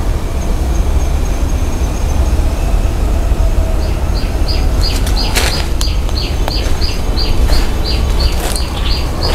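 Small bird chirping: short high chirps repeated about three times a second, starting about four seconds in. Under them runs a steady low rumble on the microphone, with a few clicks.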